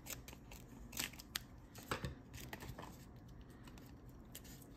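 Scissors cutting through a tape-wrapped cardboard mailer: a few sharp snips, the clearest about one second and two seconds in.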